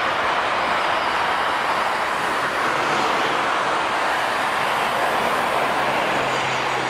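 Jet airliner engines giving a loud, steady rushing noise, with a faint low hum joining near the end.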